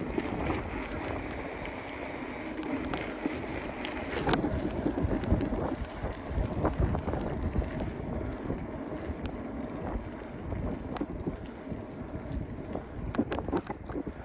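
Wind buffeting the microphone while riding at speed, a steady rushing noise with a few sharp knocks about four seconds in and again near the end.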